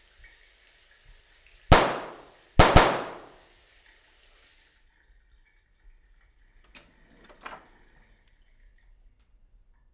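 Two gunshots about a second apart, each a sharp crack that rings out and fades over about a second. A few faint clicks follow a few seconds later.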